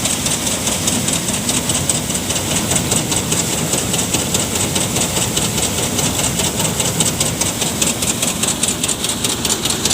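Engine-driven paddy thresher running steadily, with a continuous fast rattle from the machine.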